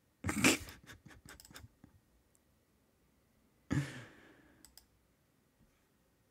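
Two short breathy laughs through the nose, the first the loudest, each followed by a few computer mouse clicks, with a quick run of clicks after the first laugh.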